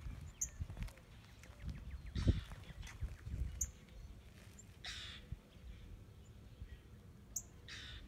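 Outdoor ambience with wind buffeting the microphone in low thumps. There are a few short soft scrapes, and three brief high bird chirps about three seconds apart.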